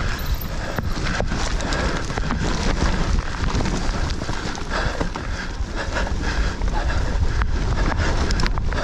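Wind buffeting a mountain bike's camera microphone as it rides down a dirt trail, under a steady low rumble with many scattered clicks and rattles from the bike over rough ground.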